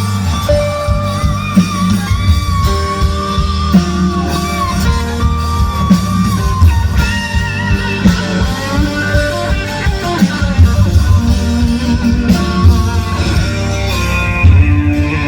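A band plays an instrumental passage: a guitar melody over bass and drums with a steady beat.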